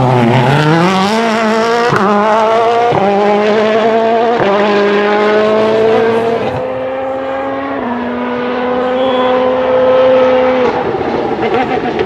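World Rally Car's turbocharged 1.6-litre four-cylinder accelerating hard out of a corner. The engine note climbs and drops back with a string of quick upshifts, then holds steady and falls away near the end.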